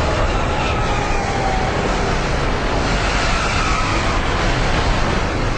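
Racing trucks' diesel engines running hard on the track, a loud, steady engine noise with faint engine tones that slide slowly in pitch.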